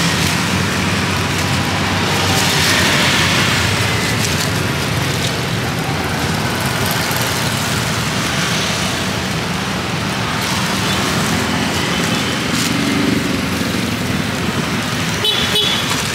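Steady street traffic noise of passing motor vehicles, with a few sharp clicks near the end.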